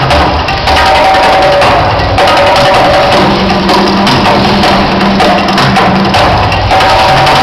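Loud drum-heavy music from the volcano show's soundtrack playing over outdoor speakers, with held tones under the drumming.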